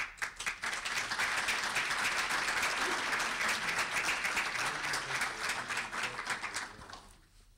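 Audience applauding at the end of a talk, a dense patter of many hands clapping that starts at once, holds steady and dies away about seven seconds in.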